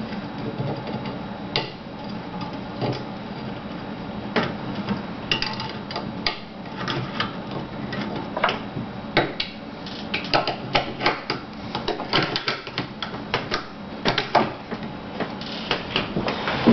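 Metal parts of a Vz. 52/57 rifle clicking and clacking as they are handled during field stripping, with irregular small knocks that come thicker about halfway through.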